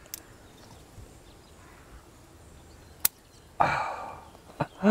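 A single sharp snip about three seconds in as the stem of a small watermelon is cut from the vine with hand snips. A fainter click comes at the start, and a short rustling burst follows just after the cut.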